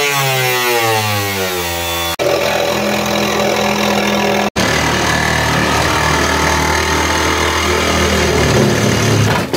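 Power tools cutting into a SeaArk boat's aluminum side box. An angle grinder winds down in falling pitch, then a motor hums steadily, then noisy cutting follows. The sound breaks off abruptly twice, at about two seconds and about four and a half seconds in.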